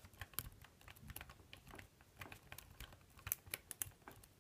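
Faint, irregular metal clicks and scrapes of a tension wrench being worked into the keyway of a euro cylinder lock.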